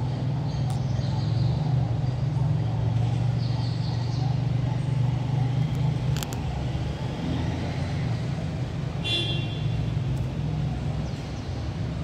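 Steady low rumble of motor-vehicle engine noise, with a sharp click about six seconds in and a short high chirp about nine seconds in.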